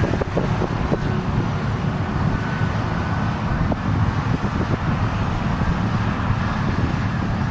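Heavy construction machinery engines running steadily at a distance, under the low rumble of wind buffeting the microphone.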